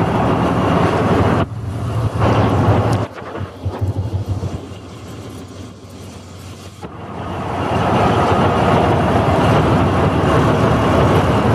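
The engine of a Northwest 80-D cable shovel running steadily. The sound drops back for a few seconds in the middle, then comes up again and holds.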